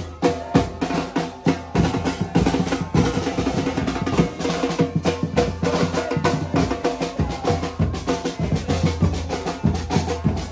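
A football supporters' drum band playing a fast, loud rhythm on snare drums, bass drums and metal bucket drums beaten with sticks.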